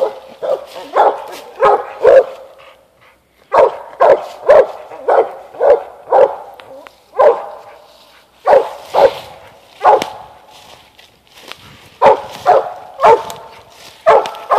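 Young mountain cur barking over and over at the base of a tree, in quick runs of barks broken by short pauses: the pup is barking treed, signalling game up in the tree.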